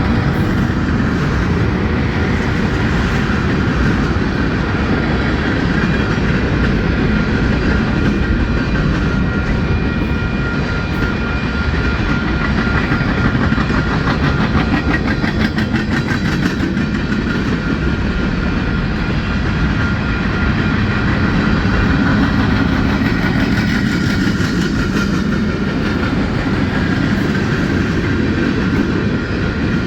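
Mixed freight train rolling past at close range: the steady rumble of the cars and the clickety-clack of steel wheels over the rail joints.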